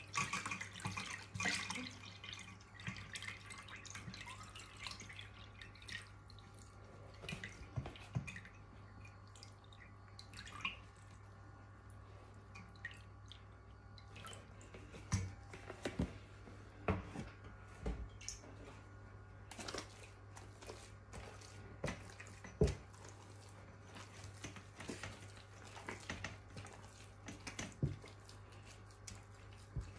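Buttermilk pouring, then dripping, through a fine mesh sieve into a bowl as churned butter is strained. A steady pour for the first couple of seconds gives way to scattered drips and small taps, with one louder knock a little past the middle.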